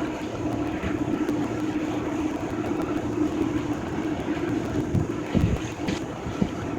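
Heavy demolition machinery running steadily with a constant engine hum, and a few knocks and thuds of debris toward the end.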